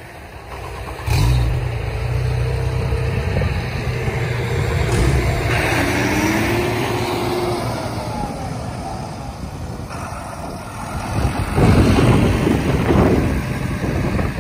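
Twin Suzuki outboard motors running and revving up as a ski boat powers off the beach through the shore break, with the rush of surf and churned water around the hull. The engine sound starts suddenly about a second in, and the water rush is loudest about twelve seconds in.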